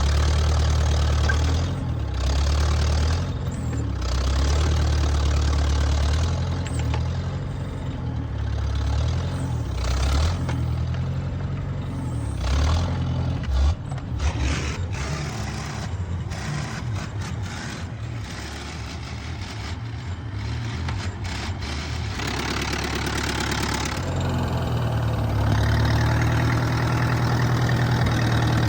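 Massey Ferguson Workbull 202 tractor engine running, its speed rising and falling, with a few abrupt breaks in the sound.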